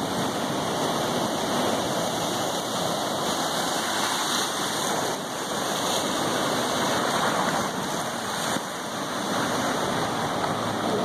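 Ocean surf washing and churning over rocks at the shoreline: a steady rushing of water, dipping briefly near the end.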